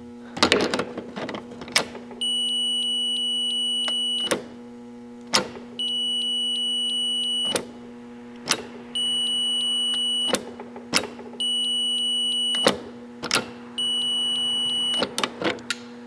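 A multimeter's continuity beeper sounds five times, each a steady high beep lasting one to two seconds, with sharp clicks from the test probes between beeps, over a steady low hum. The beeps mean the freshly cleaned fridge power switch now conducts where before it showed no continuity on the neutral.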